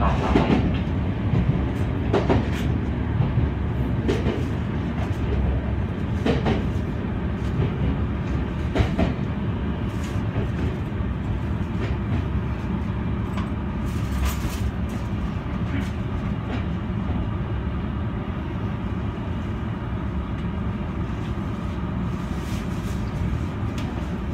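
Senboku Rapid Railway 7020 series electric train running along the line, heard from inside the driver's cab: a steady rumble of wheels on rail with occasional sharp clacks over rail joints and points.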